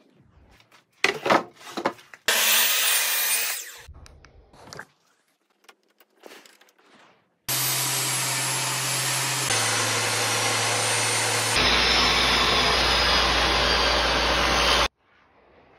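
Table saw running with a pine board being cross-cut on a sled: a steady loud run of motor and blade noise lasting about seven seconds, changing abruptly twice. Before it come a few sharp wooden knocks and a short loud scraping noise from boards being handled.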